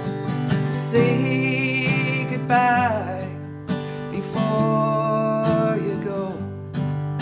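Live acoustic folk music: acoustic guitar strumming under a sung melody, with two long held phrases that waver in pitch.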